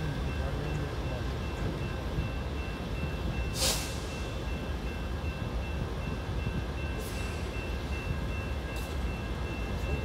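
Steady low diesel rumble from an idling BNSF GE Dash 9 locomotive and the dump trucks working around it, with a faint steady whine. A short, sharp hiss comes about three and a half seconds in, and two fainter hisses come later.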